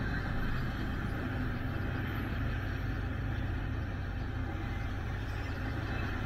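Union Pacific intermodal freight train cars rolling past at speed: a steady rumble of steel wheels on rail.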